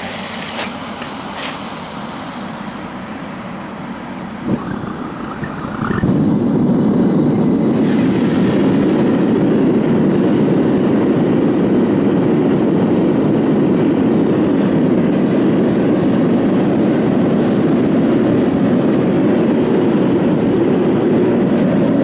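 Homemade propane burner being lit: a hiss with a few sharp clicks, then about six seconds in it catches and becomes much louder and deeper, burning steadily into the furnace.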